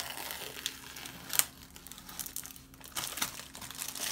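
Clear adhesive tape being peeled off the edges of a watercolour sheet on a wooden board and handled, giving irregular crackles, the sharpest about a second and a half in.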